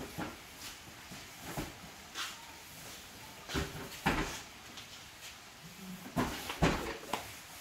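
Cardboard boxes of gas stoves being set down and pushed into a car's cargo area: a series of dull knocks and thuds, some with a short scrape, the loudest about four seconds in and again near the end.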